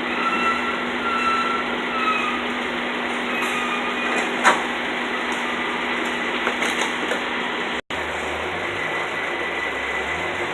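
Honda Fit's engine idling steadily with the air conditioning running, and a single sharp click about four and a half seconds in. The sound cuts out for an instant about eight seconds in.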